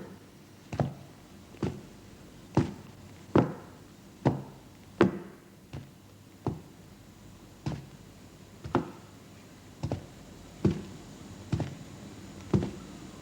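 Footsteps sound effect made with a pair of shoes worn on the hands and walked on a tabletop, heel then toe: an even series of knocking steps, a little under one a second.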